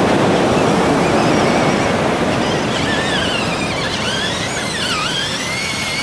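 Toy RC monster truck's electric motor whining, its pitch swooping down and up as the throttle changes, starting a couple of seconds in, over a steady hiss of surf.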